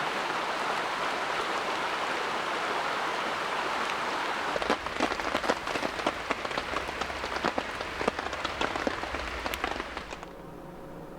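Rain falling: a steady rush at first, then from about halfway a dense run of raindrops tapping on a surface. About a second before the end it cuts to a much quieter scene with a faint steady hum and a few ticks.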